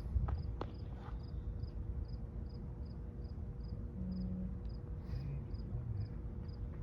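A cricket chirping steadily, about two or three short chirps a second, over low rumbling noise, with a few scattered light taps.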